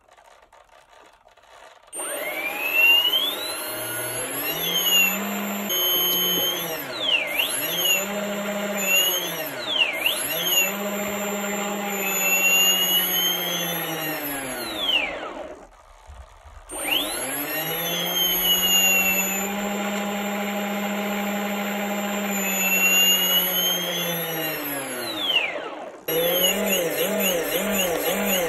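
Small brushless outrunner motor with no propeller fitted, driven through its ESC by a servo tester: an electronic whine that rises and falls in pitch several times as the throttle is turned up and down. It stops for about a second midway, then runs steady again. Near the end the sound turns into a quick, regular warble of about three pulses a second.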